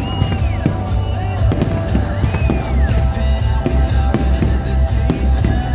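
Loud music with a heavy bass beat mixed with fireworks going off, with scattered sharp bangs and pops.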